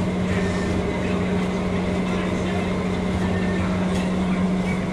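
A steady, unchanging low mechanical hum over dense background noise.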